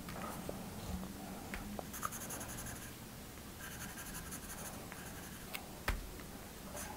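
Pencil scratching on paper in short sketching strokes, with a few faint ticks and one sharper knock about six seconds in.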